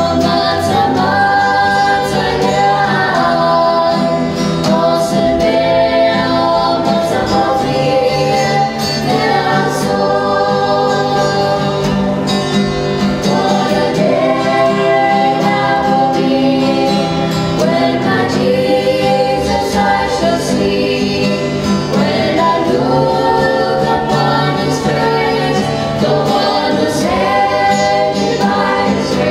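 A small mixed group of voices, women, girls and young men, singing a gospel song together in harmony through microphones, accompanied by a strummed acoustic guitar.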